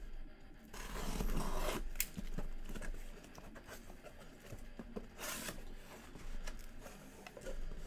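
Cardboard shipping case being opened by hand: packing tape tearing and cardboard flaps scraping, in two rasping stretches, the longer one about a second in, with scattered sharp clicks.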